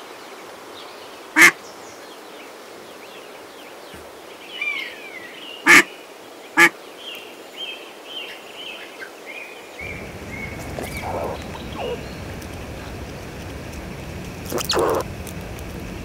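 Domestic ducks quacking: a few short, loud single quacks spaced seconds apart, with faint high chirping between them.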